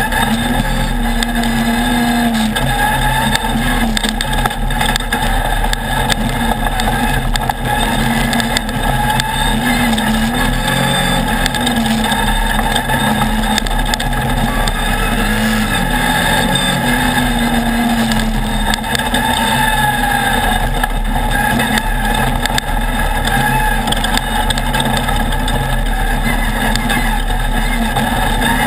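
Off-road race buggy's engine heard onboard, running hard with its pitch rising and falling again and again as the throttle comes on and off over the dirt track. Short knocks and rattles from the rough ground run through it.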